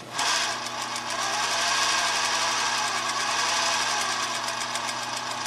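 Singer 20U industrial zigzag sewing machine, driven by its separate half-horsepower motor, running steadily while zigzag-stitching the second side of a buttonhole, with a fast, even stitch rhythm. It starts suddenly and stops suddenly after about five seconds.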